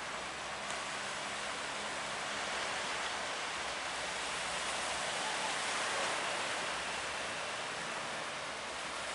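Steady rushing of sea water against a boat in big waves. It swells a little around the middle.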